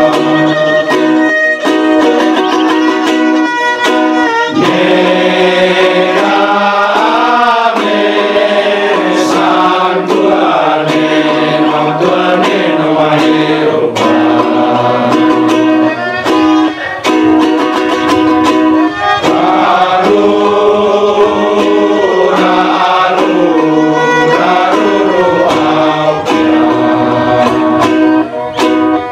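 Men's choir singing a hymn, accompanied by a bowed violin and a strummed string instrument.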